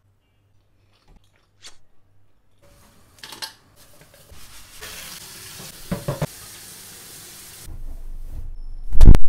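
Kitchen tap running into a stainless-steel sink as a blender jar is rinsed, with a few clunks of dishware against the steel. A loud knock comes near the end.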